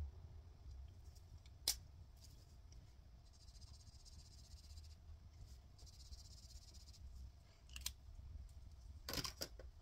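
Faint rubbing of a felt-tip highlighter colouring on a laminated card, in two stretches of a couple of seconds each in the middle, with a few light clicks and taps around it.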